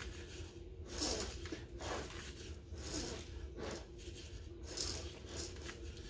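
Soft, irregular scraping and rustling strokes, roughly one a second, from hands handling the birdcage and its fittings, over a faint steady hum.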